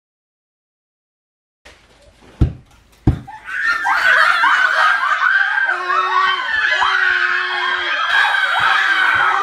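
Silence, then two sharp thumps about half a second apart, after which several high voices break into excited shrieking, screaming and laughing together.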